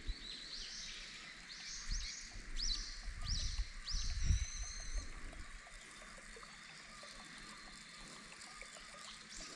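A bird singing: a quick series of short, arching whistled notes, then a held note on two pitches that stops about halfway through. Under it runs a steady outdoor hiss, and a few dull low rumbles come in the first half.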